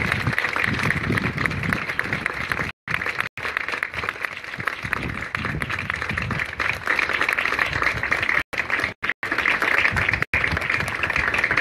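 A crowd applauding, a steady mass of clapping throughout. The sound cuts out completely for split seconds several times, mostly between about three and ten seconds in.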